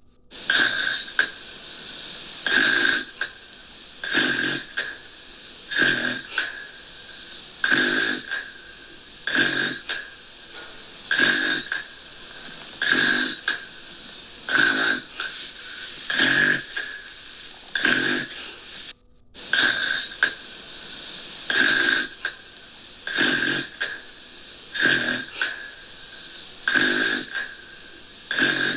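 Gentle snoring: short breathy snores, mostly in pairs, repeating about every two seconds over a steady hiss. The sound drops out for a moment about two-thirds of the way through.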